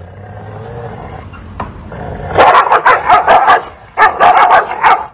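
Two dogs facing off through a fence: a low snarling growl builds, then they break into two rapid flurries of loud, aggressive barking, the first about two and a half seconds in and the second about four seconds in.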